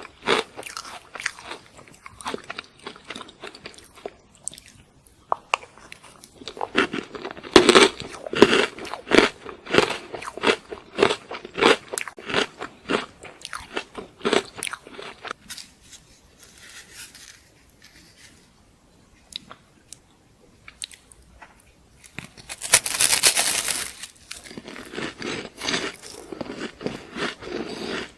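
Close-miked biting and chewing of crunchy food: dense runs of crisp crunches, a quieter pause, a loud hissing burst of about a second and a half, then more crunching.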